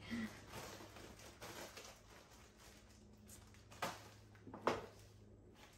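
Zip-top plastic bag full of saltine crackers being handled and closed: soft plastic rustling, with two short, sharp crinkles or clicks about four and five seconds in.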